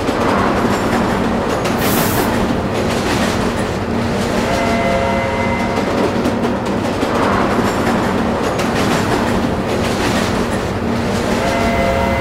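Diesel locomotive engine running steadily at a station platform, a loud continuous low hum. A short hiss comes about two seconds in.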